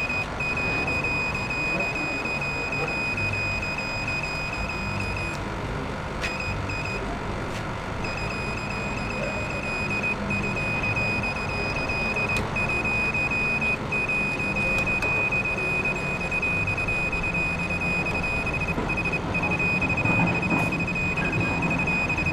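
Handheld satellite finder meter sounding a high, steady beep tone, with a pause of a few seconds early on and short breaks later, turning into quick pulses near the end. The tone signals that the meter has locked onto the DSTV satellite signal.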